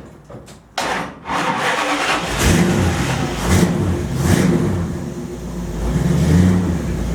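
The hot rod's engine is cranked by the starter and fires up just under a second in, then runs with the revs rising and falling several times.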